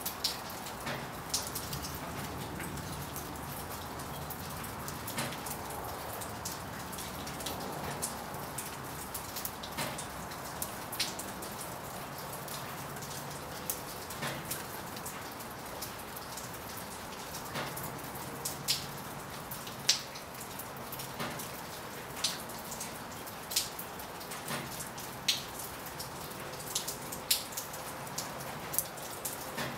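Steady rain falling, with scattered sharp taps of single drops, some much louder than the rest, at irregular intervals.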